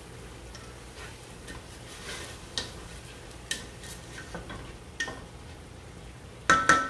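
Wooden spatula stirring rice in a stainless steel pot, with scattered scrapes and taps against the pot. Near the end come a few sharp knocks that make the pot ring briefly.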